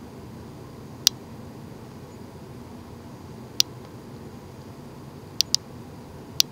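Steady low room noise broken by sharp, very short clicks: one about a second in, another a little after three and a half seconds, a quick pair about five and a half seconds in, and one more near the end.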